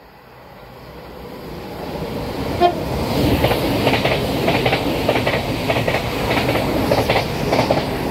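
A passing train grows louder as it approaches, then its wheels clatter in a steady clickety-clack over the rail joints as the carriages go by. A brief horn toot sounds about two and a half seconds in.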